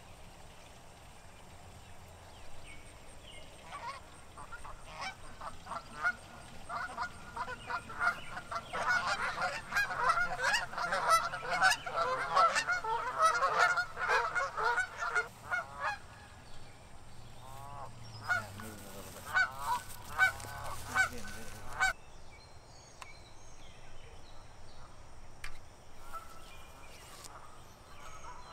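A flock of birds calling, many short calls overlapping, starting a few seconds in and growing dense midway. After a brief lull a last run of calls cuts off suddenly.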